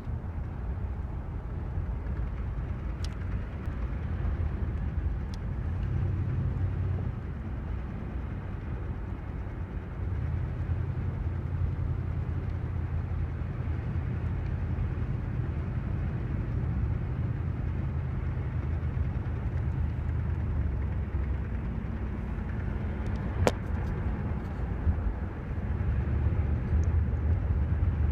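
1985 Oldsmobile Delta 88's 307 V8 running, the drone rising and falling in level. Over it is a clicking/ticking noise that came from a dry speedometer cable, cured by greasing it. One sharp click stands out about 23 seconds in.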